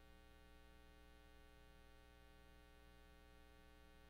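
Near silence with a steady, low electrical hum.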